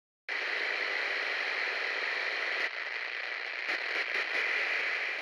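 Static-like hiss with faint crackles, starting abruptly a moment in and a little quieter after about two and a half seconds.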